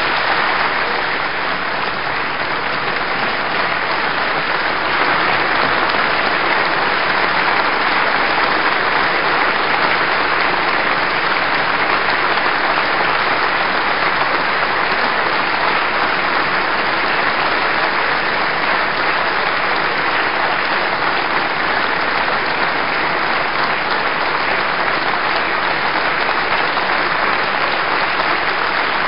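A large audience applauding steadily: a standing ovation from a packed parliamentary chamber at the end of a speech.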